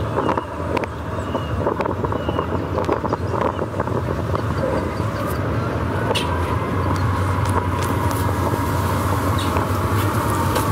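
Passenger ferry's engine running with a steady low rumble as the boat comes alongside the pier. It grows louder, and from about six seconds in a steady whine rises over it.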